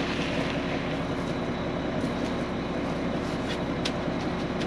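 Concrete mixer truck running steadily with a constant low hum while concrete is discharged down its chute, with a few light scrapes over it.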